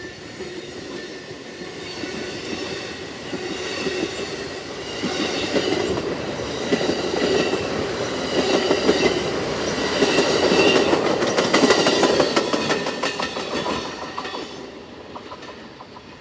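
Amtrak Lake Shore Limited passenger train rolling slowly past, the wheels clicking rapidly over the rail joints. It grows louder to a peak about twelve seconds in, then fades as the train draws away.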